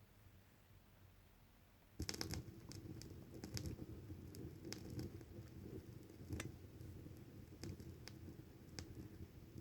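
Stylus setting down on a vinyl record about two seconds in, then faint surface noise from the lead-in groove: a low rumble with scattered crackles and pops.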